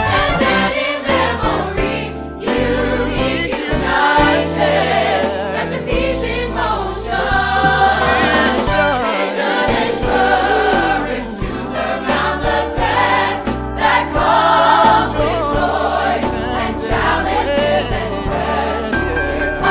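Mixed choir of men and women singing a choral arrangement in parts, over sustained low bass notes that move in steps.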